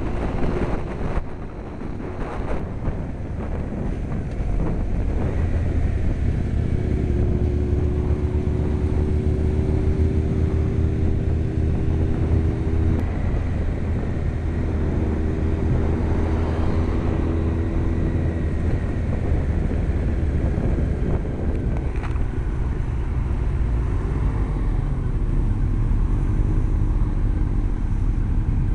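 Motorcycle engine running steadily at road speed, with wind rush on the helmet-mounted camera. The engine note holds level, with a short break about halfway through.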